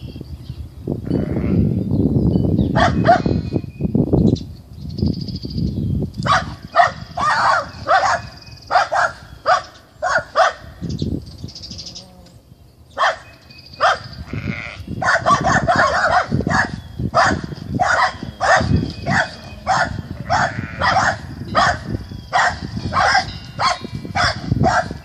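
Lambs bleating: a few lower calls in the first seconds, then a long run of short, high bleats coming about two a second, with a brief pause about halfway through.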